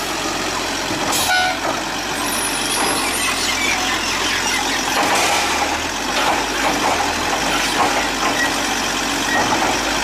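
Automated side-loader garbage truck running at the curb, its engine idling under a steady mechanical din as the hydraulic side arm lifts a wheeled trash bin and tips it into the hopper.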